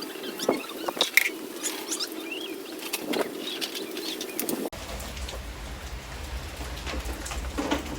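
Small birds chirping in short rising and falling calls, with scattered clicks over a steady background. About two-thirds of the way through, the sound cuts abruptly to a low steady hum under an even hiss.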